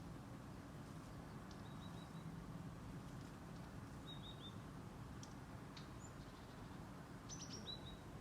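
Small songbird chirping faintly: three short groups of quick, high, down-slurred notes, a few seconds apart, over a steady low background rumble.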